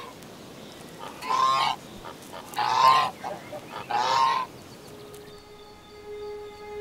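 Domestic geese honking: three calls about a second apart. Soft held music tones come in near the end.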